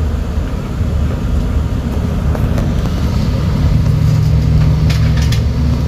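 A motor vehicle's engine rumbling close by, with a steady low hum joining about three and a half seconds in.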